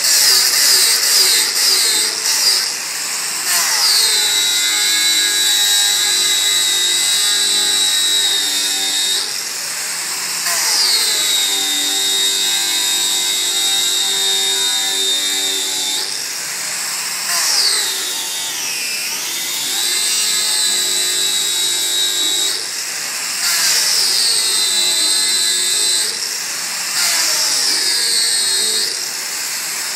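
Angle grinder grinding a weld on a steel frame: a loud high whine that drops in pitch each time the disc is pressed into the metal and then holds steady, over about six passes, with one deep dip near the middle.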